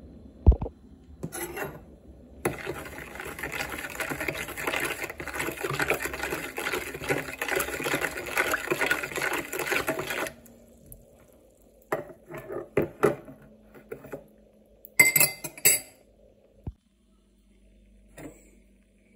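Metal spoon stirring liquid in a bowl, scraping and clinking against the bowl for about eight seconds, then a few separate clinks and taps. A sharp knock comes just after the start.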